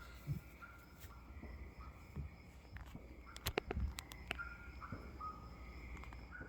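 Faint evening outdoor ambience: a steady high chirring, like night insects, that breaks off and resumes, over a low rumble. A quick cluster of sharp pops comes about three and a half seconds in.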